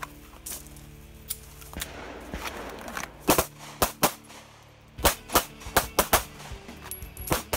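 Handgun shots fired in an irregular string during a shooting drill: a few fainter shots in the first two seconds, then louder shots from about three seconds in, several in quick pairs.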